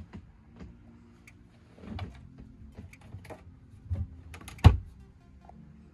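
A small wood-faced cabin door being handled and pushed shut, with scattered light knocks and clicks. A single sharp clack of it latching comes near the end.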